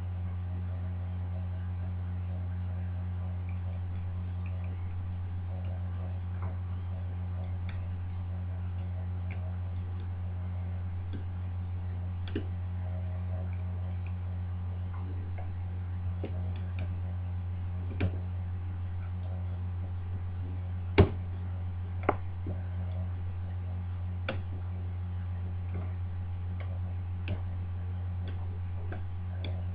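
Faint, irregular ticks and taps of the levers inside a Union five-lever deadlock as it is worked with a lever pick, with a few sharper clicks a little past the middle. The picker has just dropped a lever out of its anti-pick notch and is setting the levers again. A steady low electrical hum runs underneath.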